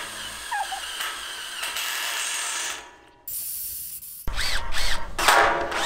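Ratcheting clicks of a hand-operated lever chain hoist being worked back and forth. Music comes in after about four seconds.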